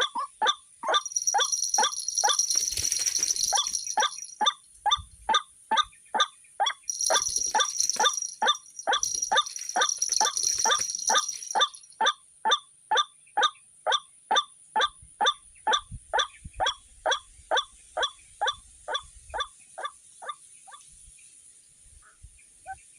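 White-breasted waterhen calling: a long, even run of short pitched 'kwak' notes, about two or three a second, fading and stopping near the end.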